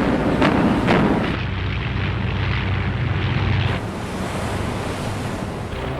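Dubbed sea-battle sound effects: a couple of sharp blasts in the first second over a loud rush of noise, then a steady low rumble with sea and wind noise.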